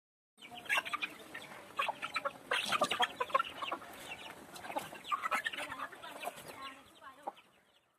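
A flock of chickens clucking and calling, many short overlapping calls. The calls start abruptly about half a second in and fade out near the end.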